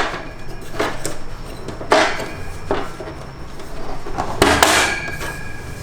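Parts of a Hagen Vision bird cage being handled and set in place, with several sharp clacks and knocks of the pieces against each other, the loudest about two seconds in and near the end.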